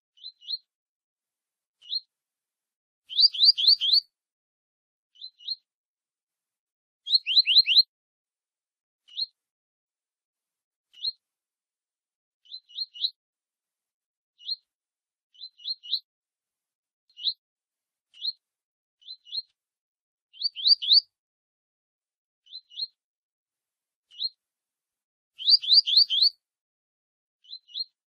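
Double-collared seedeater (coleiro) giving its short 'tui tui' song: brief whistled notes that each sweep upward, singly or in pairs every second or two, with louder runs of four or five quick notes a few times.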